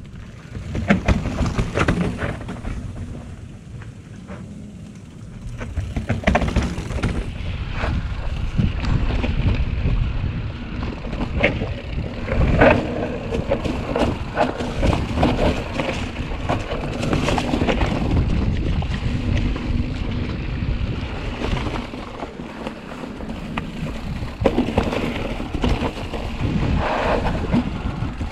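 Mountain bike ridden down a rocky trail strewn with dry bamboo leaves: tyres crunching over leaves and rock, the bike clattering over bumps, and wind buffeting the microphone.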